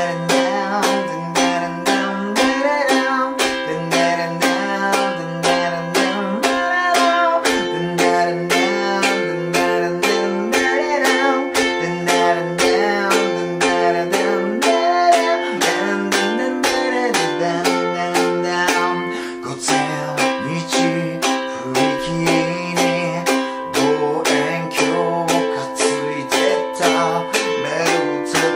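Ukulele strummed in a steady, even rhythm, playing a song intro on a C chord and then an F chord, with a low sung melody line along with it.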